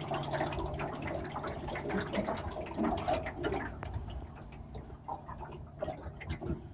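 River water splashing and lapping against the hull of a small jon boat under way, with many small splashes and a low steady hum that fades about halfway through.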